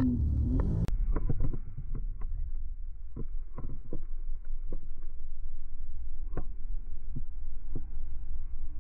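Sea-Doo jet ski running at speed over chop, heard muffled: a steady low rumble with frequent irregular thuds as the hull slaps the waves and spray strikes.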